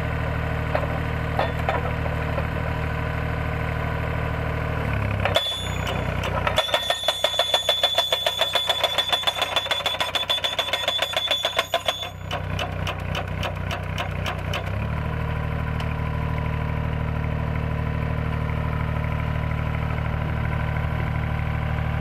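Engine of a tracked solar pile driver running steadily. About six seconds in, the hydraulic hammer starts rapidly striking a steel post with a metallic ring. After about five seconds the blows thin to separate strikes and stop, and the engine runs on steadily.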